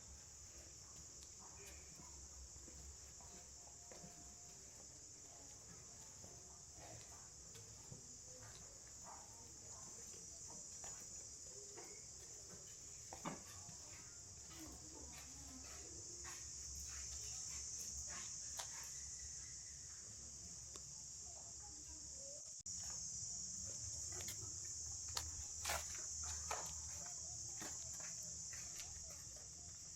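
A steady, high-pitched chorus of insects such as crickets, trilling without a break, with scattered light ticks and clicks over it. The whole sound steps up suddenly about two-thirds of the way through.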